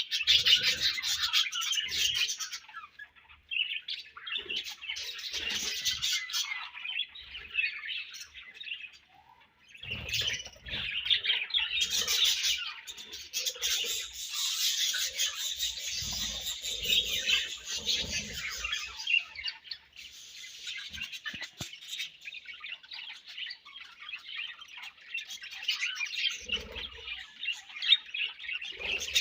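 A flock of budgerigars chirping and chattering continuously, with squawky calls mixed in; the chatter thins briefly about a third of the way in, then grows dense again.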